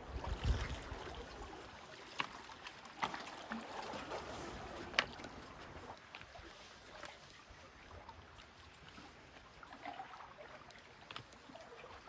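Small Lake Huron waves lapping and trickling against a rocky shore, with scattered sharp clicks at irregular times and a brief low rumble about half a second in.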